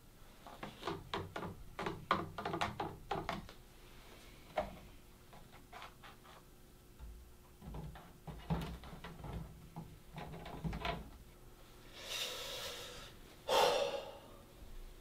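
Handling noises: a quick run of light knocks and clinks in the first few seconds, another cluster about eight to eleven seconds in, then two short rushing hisses near the end.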